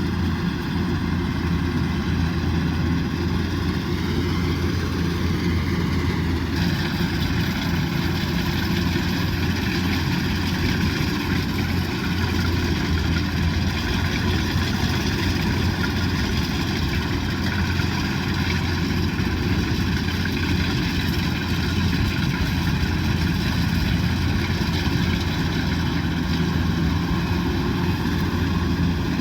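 Kubota DC108X combine harvester running steadily, a heavy diesel rumble with a whine of steady higher tones over it; the whine grows stronger about six seconds in.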